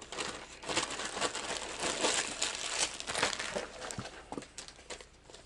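Thin plastic zip-top bag crinkling and rustling in quick, irregular handfuls as fingers rummage through the soft plastic lures inside. It dies away near the end.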